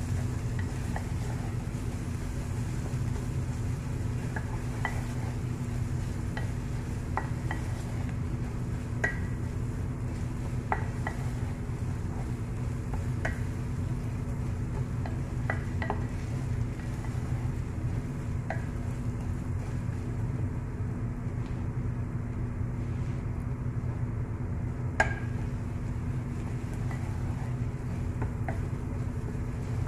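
A spatula scraping and clicking against the sides of an aluminium pressure cooker as onions and ginger-garlic paste are stirred and fried, with scattered light taps and one sharper knock late on. Under it runs a steady low hum.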